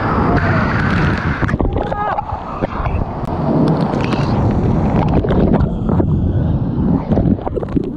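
Water splashing and churning close to the microphone, with scattered knocks and rubbing as the camera bumps against a vinyl inflatable ring float.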